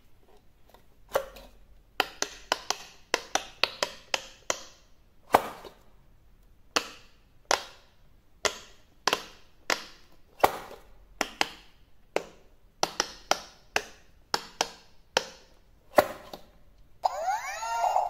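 Silicone bubbles of an electric pop-it push game pressed one at a time with the fingers, giving sharp clicks in an uneven series, sometimes in quick runs. About a second before the end the game switches on and plays electronic tones that glide up and down.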